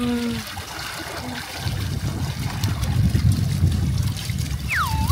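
Water splashing and churning in a concrete pond tank as people wade in and grab at a large carp thrashing to get away, the splashing growing heavier about a second and a half in. Near the end a short whistle-like tone slides down, holds, and slides back up.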